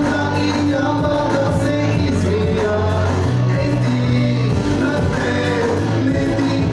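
Music with singing over held bass notes.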